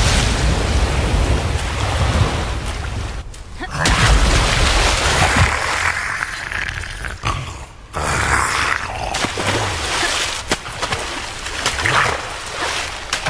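Film sound effects: deep rumbling booms and sharp hits over a dense, noisy wash. It drops away briefly twice, about three and a half and eight seconds in.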